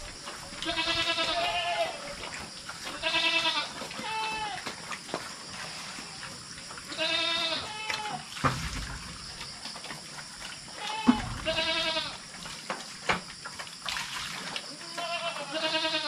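Farm animals calling: a run of about six drawn-out, wavering cries, each about a second long, with a few short knocks in between.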